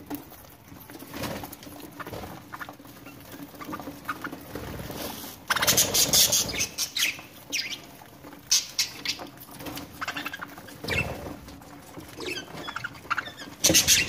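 A flock of budgerigars feeding, chattering in short scratchy chirps and clicks. There are louder flurries about five and a half seconds in, again around eight and a half and eleven seconds, and near the end.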